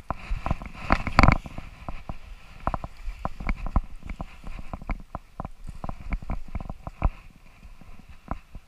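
Footsteps crunching in snow and leaf litter at an uneven pace, as if picking a way down a steep slope. A louder crunching scuffle comes about a second in.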